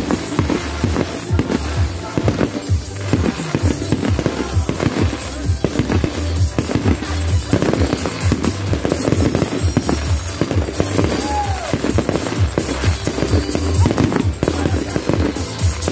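Fireworks display with shells bursting in rapid, overlapping bangs and a continuous low rumble, with music playing alongside.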